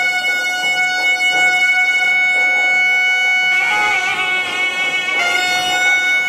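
Nadaswarams, South Indian double-reed wind instruments, playing Carnatic music in Keeravani raga: a long steady note held for about three and a half seconds, a short ornamented passage, then the same note held again.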